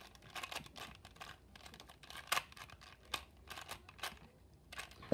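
Plastic Rubik's Cube being turned quickly by hand during a timed solve: irregular rapid clicks and scrapes of the layers twisting.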